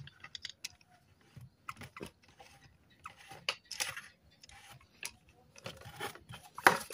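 Plastic pump head being screwed onto a hand-pump pressure sprayer bottle: scattered short scrapes and clicks of plastic threads and hands on plastic.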